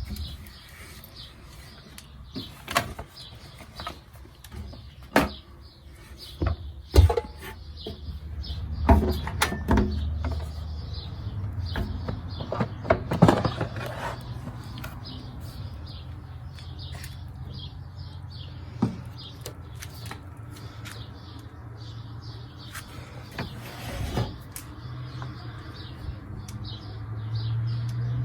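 Miele Meteor 1000 Novotronic washing machine running: a steady low hum with irregular knocks and clicks, the hum growing louder near the end.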